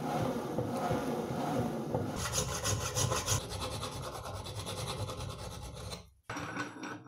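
A hand file rasping back and forth over a steel rod clamped in a bench vise, a run of quick filing strokes that stops suddenly near the end.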